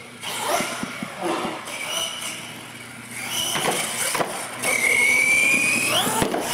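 Radio-controlled monster truck running over ramps: a few knocks as it lands, then its motor whines up in pitch for about a second as it speeds away.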